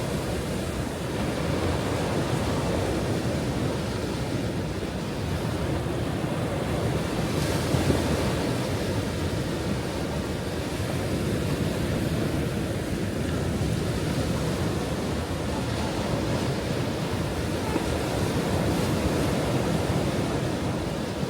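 Ocean waves breaking on a shore: a continuous rush of surf that slowly swells and ebbs, with one sharper wave crash about a third of the way in.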